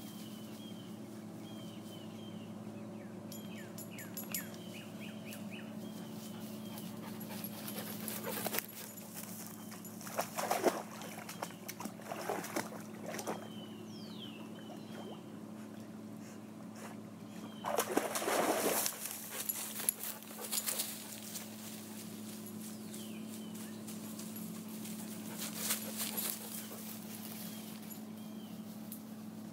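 Dogs moving about close by, making irregular bursts of noise a few seconds apart, the longest and loudest about eighteen seconds in. Faint bird chirps and a steady low hum run underneath.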